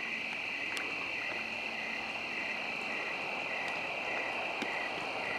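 Night insect chorus: a steady high trill overlaid by a second call that pulses evenly a couple of times a second, with a few faint clicks.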